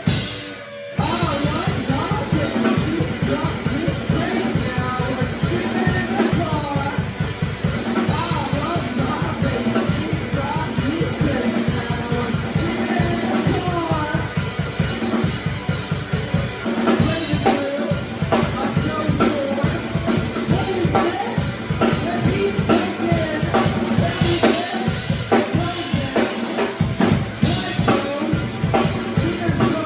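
Live band playing a song, with a drum kit's bass drum and snare keeping a steady beat under pitched instruments. The full band comes back in about a second in, after a brief break.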